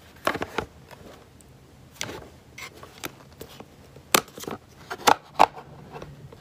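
Hard plastic clicks and knocks from a white plastic CD player being handled and fitted to its stand: a string of irregular sharp taps, the loudest a little past the middle.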